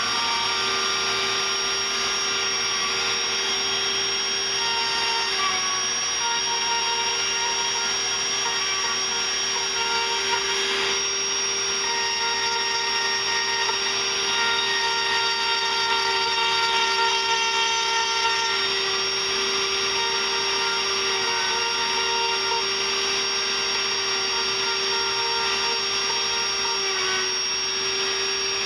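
Dremel rotary tool running steadily with a high-pitched whine, its bit carving out torn-out wood fibres from the grooves of small CNC-routed letters in a wooden sign.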